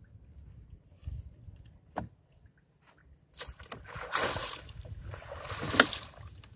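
A wet fishing net being hauled in over the side of a small outrigger boat: a single knock about two seconds in, then a long spell of water splashing and sloshing as the mesh comes up out of the sea, loudest near the end.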